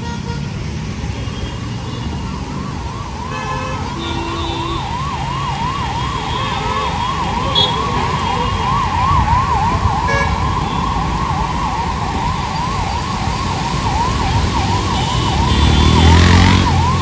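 Emergency vehicle siren in a fast rising-and-falling yelp, about three sweeps a second. It sounds over the steady hiss of heavy rain on a wet road, with passing traffic and a few short horn toots.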